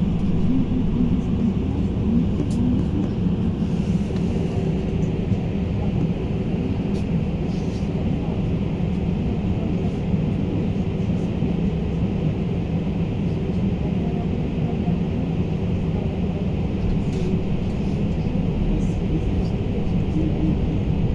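Steady low rumble of cabin and road noise inside a KamAZ-6282 electric bus moving through city traffic, with a few faint ticks.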